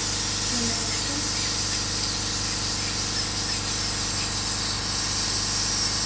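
High-speed dental handpiece running steadily, a continuous high hiss as it cuts through a small metal bell.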